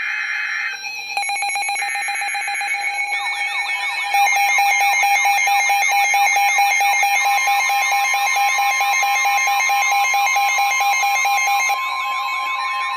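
NOAA Weather Radio emergency alert for a new warning. It opens with the screechy SAME digital data bursts of the alert header. From about 3 seconds in, weather alert radios sound their alarms together: a fast warbling siren-like sweep and rapid beeping, louder from about 4 seconds. They are joined about 7 seconds in by the steady Weather Radio warning tone.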